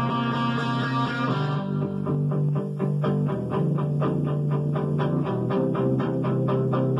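Rock music with electric and bass guitar over a steady beat of about four strokes a second.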